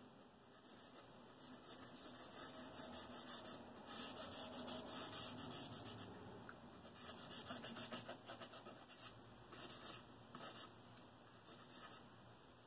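Fingers rubbing and smudging charcoal across sketchbook paper to blend it: faint rubbing in clusters of short, irregular strokes with brief pauses.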